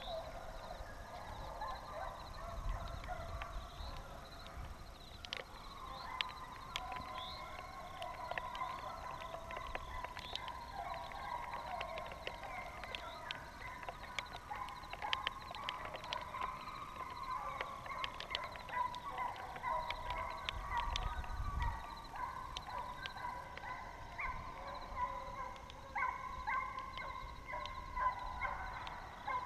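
A pack of deer hounds baying on a running track, many voices bawling and overlapping without a break and growing busier near the end.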